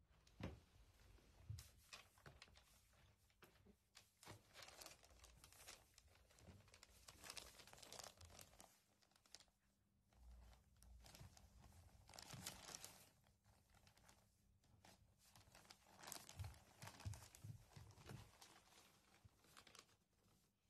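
Newspaper rustling and crinkling in faint, irregular bursts as two cats wrestle on and over the sheets.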